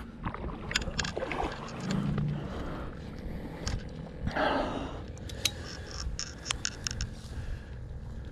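Wind rumbling on the microphone, with scattered small clicks and rustling from fishing line and dry reed stems being handled, and a quick run of clicks between about five and seven seconds in.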